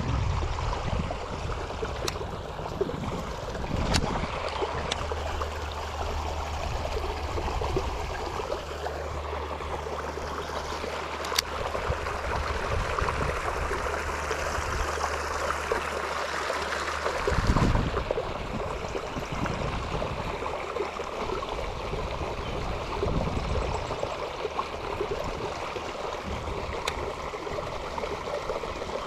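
Creek water pouring over a small spillway: a steady, unbroken rush. A low hum sits under it for most of the stretch and stops suddenly about two-thirds through, and there are a few sharp clicks.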